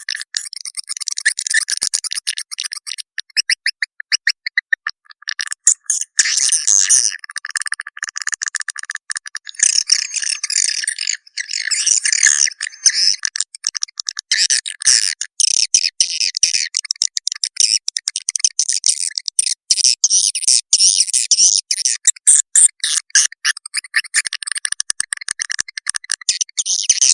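Swiftlet lure-call recording: high-pitched twittering and rapid clicking chirps of swiftlets, the 'call sound' played to draw swiftlets into a bird house.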